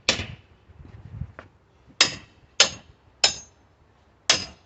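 Small sledgehammer striking a steel pry bar to drive it under a stubborn wood pallet board: five sharp, unevenly spaced blows, some with a brief metallic ring.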